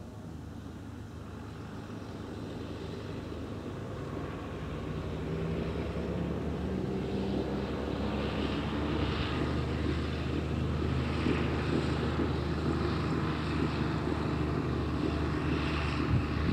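An engine drone that grows louder over the first few seconds and then holds steady, with a brief louder knock at the very end.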